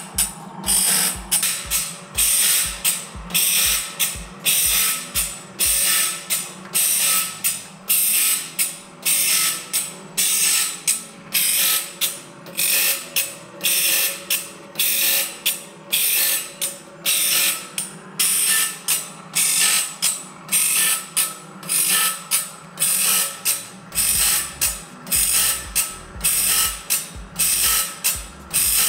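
Band saw blade sharpening machine grinding a band saw blade tooth by tooth: a short grinding stroke of the wheel on each tooth, about three every two seconds in an even rhythm, over the steady hum of the machine's motor.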